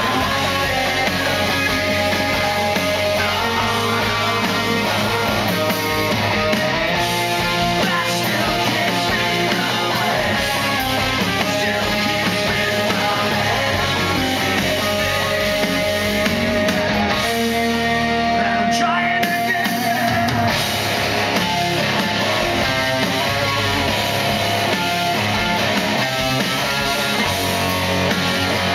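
Live rock band playing: electric guitars, bass and drums under a male lead vocal, heard from the audience.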